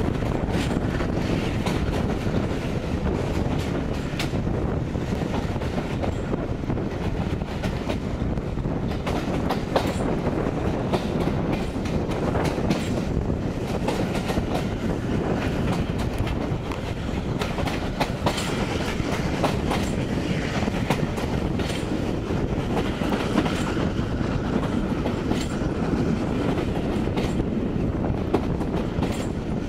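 Passenger coaches of a steam-hauled train running along the line, heard out of an open carriage window: a steady rush of running noise with scattered sharp clicks of the wheels over the rail joints.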